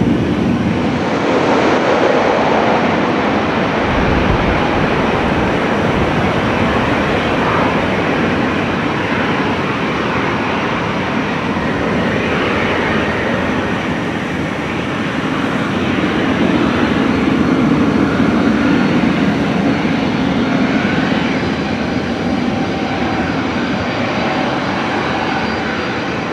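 Twin-engine widebody jet airliner landing: a loud, steady rush of jet engine noise that carries on as the aircraft rolls out down the runway, easing slightly near the end.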